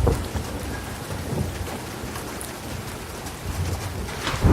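Thunderstorm: steady rain with low rolling thunder, then a sharper thunderclap near the end that sets off a louder rumble.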